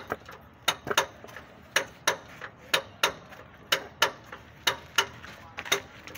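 Sharp clicks or taps in a steady rhythm, coming in quick pairs about once a second.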